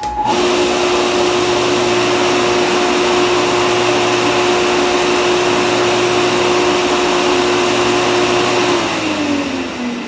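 Electric water pump motor switching on abruptly and running steadily with a whine. About nine seconds in, its power is cut and it winds down with falling pitch, as the downstairs-tank float switch drops to 'almost out of water' and opens the circuit.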